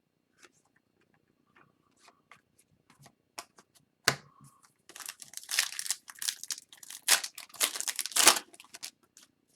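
Wrapper of a 2021-22 Upper Deck Series 1 hockey card retail pack being handled and torn open: light scattered ticks, a sharp click about four seconds in, then a few seconds of crinkling and tearing.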